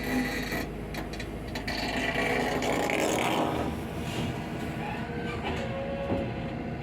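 Diesel engine of heavy machinery running steadily, growing louder and rougher for a stretch about two seconds in.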